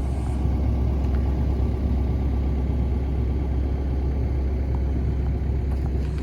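Kobelco SK85 midi excavator's diesel engine idling steadily, a low, even rumble.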